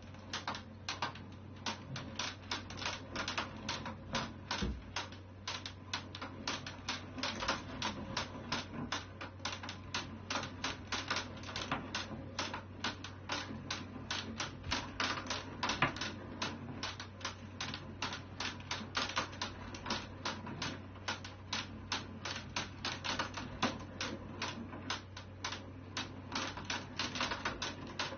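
Large wooden cat exercise wheel turning under a walking cat, giving a rapid, even run of clicks and taps.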